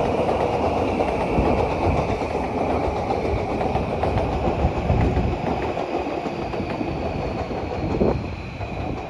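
Electric train running on the tracks, wheels clattering over rail joints under a steady rumble. A faint high whine falls slowly in pitch, and the whole sound grows gradually quieter.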